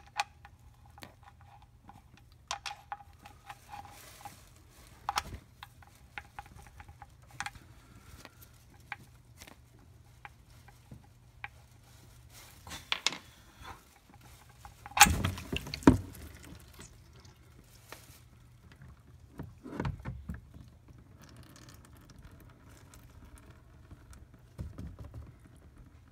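Ratchet wrench clicks and metal-on-metal clanks as an engine oil drain plug is loosened and unscrewed by hand, with a few louder knocks about 15 and 20 seconds in. Near the end, a faint steady patter of oil streaming out of the sump into a drain pan.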